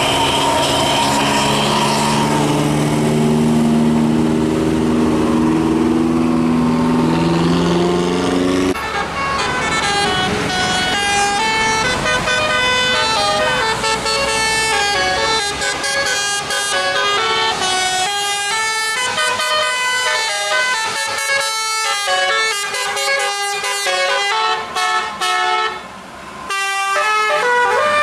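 Bus 'telolet' musical air horn. For the first nine seconds or so it holds a low chord, then plays a fast tune of short stepping notes with a brief break near the end.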